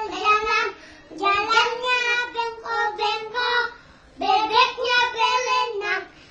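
Young children singing a song in high voices, in short phrases with two brief pauses.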